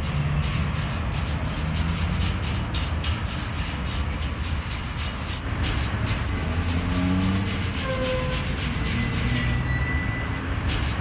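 Steady rumble of city street traffic, with a cloth rubbing over the surface of a stone statue.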